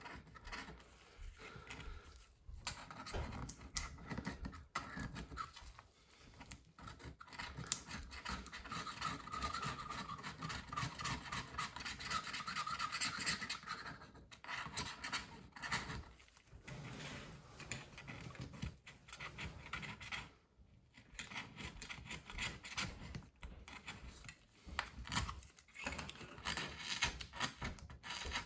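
Irregular scratching and rubbing strokes on the inside of a MacBook Pro's case as the battery bay is cleaned, with a brief squeaky stretch partway through.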